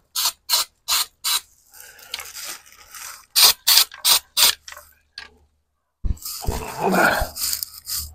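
Aerosol can of undercoating being shaken, its mixing ball rattling in quick strokes about three a second, in two runs. Near the end comes a longer rough hiss.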